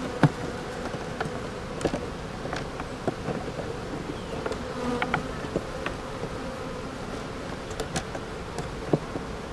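Honey bees buzzing steadily over an open hive, with scattered sharp clicks and knocks from a metal hive tool and a plastic frame spacer being worked against the wooden frame top bars.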